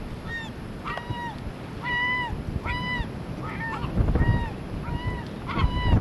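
Gulls fighting and calling: a run of short, harsh calls, about two a second, over a low rumble that swells about four seconds in and again near the end.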